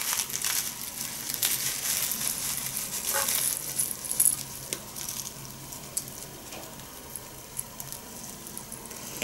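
Dry loose-leaf sencha shaken from a paper packet onto a wooden spoon: a soft rustle of paper and trickling leaves with a few light ticks, fading after the first few seconds.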